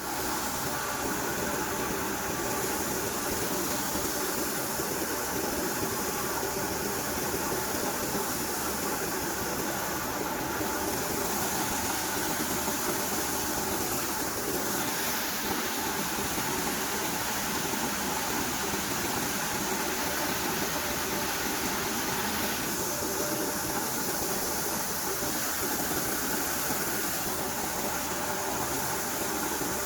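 Tractor-driven maize sheller running steadily, with an even engine note and the machine's constant noise throughout.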